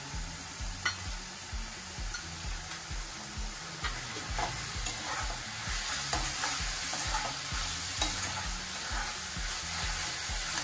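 Sliced vegetables stir-frying in a metal kadhai on high gas flame: a steady sizzle, with a metal spatula scraping and tapping against the pan as they are tossed. The sizzle grows a little louder about halfway through.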